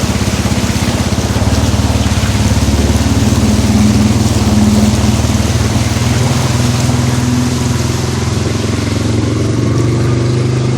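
Yamaha Scorpio motorcycle's single-cylinder engine running steadily as the bike wades through floodwater, under a steady hiss.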